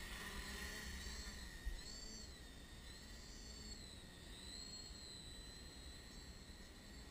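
KX-3B quadcopter's electric motors whining faintly and high, the pitch wavering up and down as the craft manoeuvres, over a low rumble. A brief low thump comes just under two seconds in.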